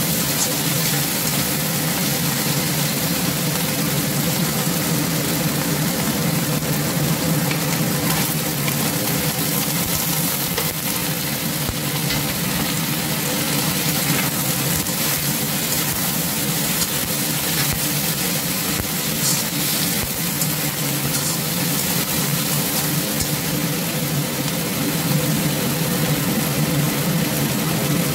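Chicken, pork and okra sizzling as they stir-fry in a wok, with a metal spatula stirring and scraping, over a steady low hum.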